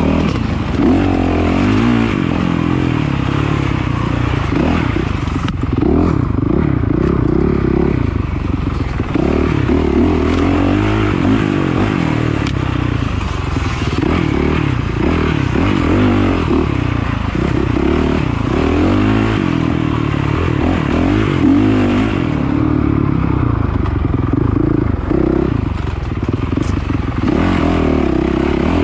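Dirt bike engine ridden hard off-road, its pitch rising and falling constantly as the throttle opens and closes, with a few knocks and rattles.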